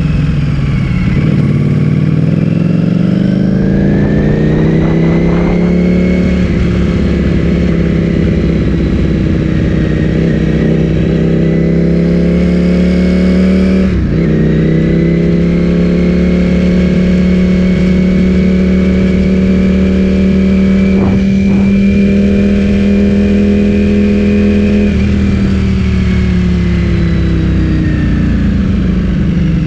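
Ducati Streetfighter V4S's V4 engine through an Akrapovic full-system exhaust, under way on the road. The engine note climbs over the first few seconds and then holds steady at cruising revs. A quick break about halfway marks a gear change, and the note falls away near the end as the bike slows.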